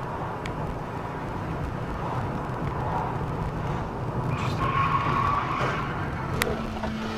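Steady engine and road noise of a moving car heard from inside the cabin, with a single sharp click about six seconds in.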